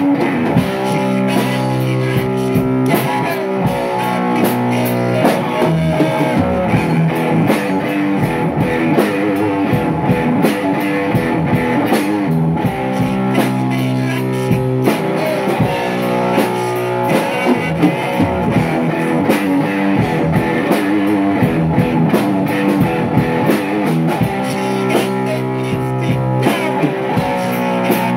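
Rock music: guitar over bass and a drum kit, with a steady beat and repeating riffs.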